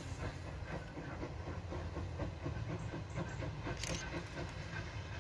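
Distant steam locomotive working a train, its exhaust beating in a steady rhythm of about four chuffs a second over a low rumble. A brief sharp click comes near four seconds in.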